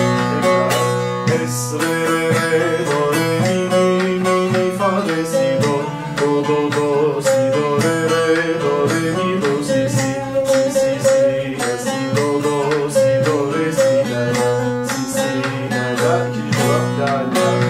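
Bağlama (saz) tuned to C, played with a plectrum: a quick picked melody at about 110 beats a minute over steady low tones.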